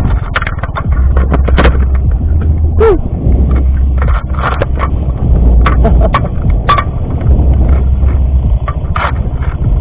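Yamaha X-Ride 125 scooter's single-cylinder engine running at low revs while the bike crosses rough grassland, with many sharp knocks and rattles scattered over the steady engine note.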